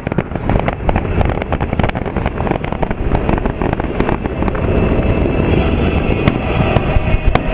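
Fireworks display: a rapid string of cracks and bangs over a continuous low rumble, with a few sharper bangs near the end.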